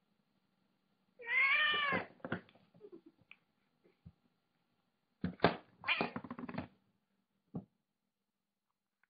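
Domestic cat meowing: one long meow about a second in, its pitch rising and falling. A few light knocks and scrapes follow, the loudest cluster about five to seven seconds in.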